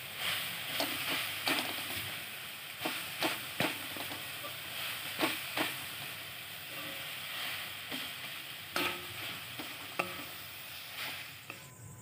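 Metal spatula scraping and knocking against a kadai while stirring a grated coconut and sugar mixture, in irregular strokes over a steady frying sizzle.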